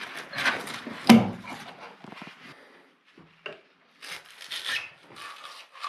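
A hand tool scraping and prying at an old wooden window frame and lintel in uneven strokes. There is a sharp knock about a second in and a short pause around the three-second mark.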